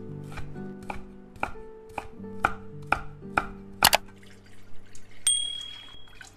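Kitchen knife chopping green onion and then green chili peppers on an end-grain wooden cutting board, sharp cuts about twice a second, with background music underneath. Past the middle the chopping stops, and a brief high ringing tone follows.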